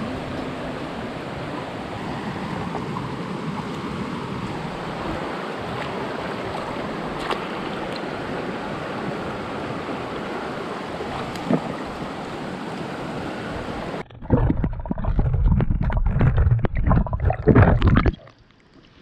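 Shallow river water flowing and rippling over stones in a steady rush. About 14 seconds in, the sound suddenly goes muffled and dull, with loud low sloshing and bubbling as the microphone is plunged under the water, then it eases near the end.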